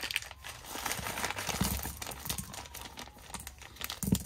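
Small clear plastic hardware bag crinkling as it is handled and emptied, with bolts, nuts and washers spilling out onto the carpeted cargo floor. There is a sharper knock about four seconds in.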